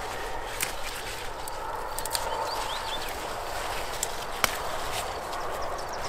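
Wild dock (avelouk) being picked by hand: several sharp snaps of stems breaking off, over a light rustle of the plants.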